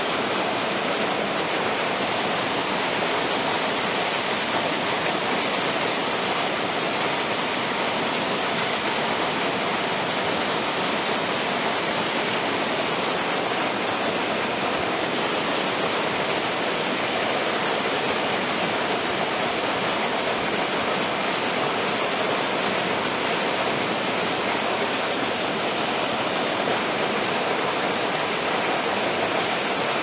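Curtis Falls, a waterfall pouring into its rock pool, making a constant, even rush of falling water.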